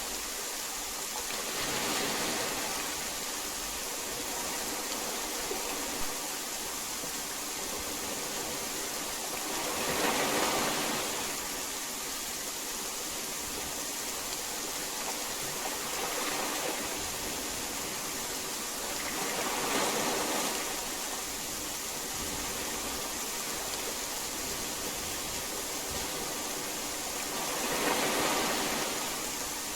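Steady hiss of heavy rain that swells and fades four times, about every eight to nine seconds.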